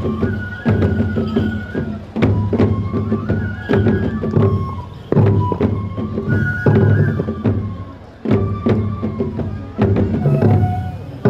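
Japanese folk festival music (hayashi) for a tiger dance: a bamboo flute plays a melody that steps between held high notes over steady taiko drum strokes, swelling in a regular beat.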